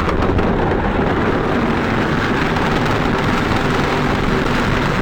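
Loud, steady rumbling and rushing noise with light clatter, from skis sliding down an escalator.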